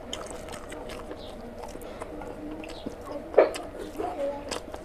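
Close-up wet eating sounds: chewing and lip-smacking of rice with oily mutton curry, with squelching as a hand squeezes and mixes the rice and gravy. A louder wet smack comes about three and a half seconds in.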